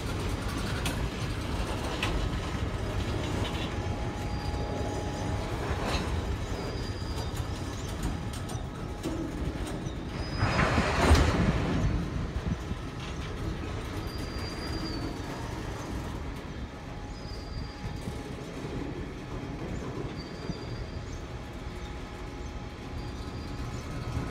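Freight train cars rolling slowly past, a steady rumble of steel wheels on rail with short high wheel squeals now and then. A louder swell of rushing noise comes about eleven seconds in.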